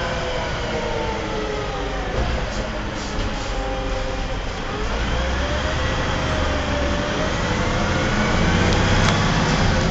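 Cummins ISC six-cylinder diesel engine of an MCW Metrobus double-decker running under way with a heavy low rumble. Its pitch falls over the first few seconds, then climbs steadily from about five seconds in as the engine speeds up.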